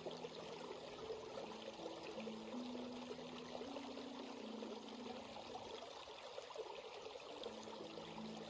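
Stream water flowing and trickling steadily over rocks, with faint low held tones underneath that step up and down in pitch.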